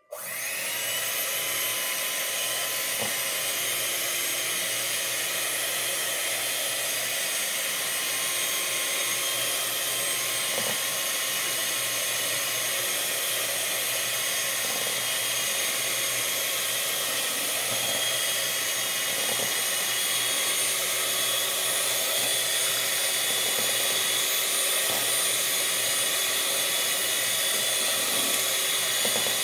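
Electric hand mixer switched on and running steadily at one speed, a loud motor whine with its beaters whirring in a plastic bowl.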